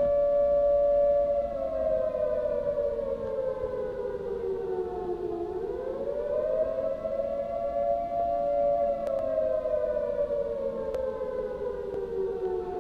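Civil defense siren wailing, two notes sounding together: it holds a steady pitch, slowly winds down, climbs back up about six seconds in, holds again, then winds down once more.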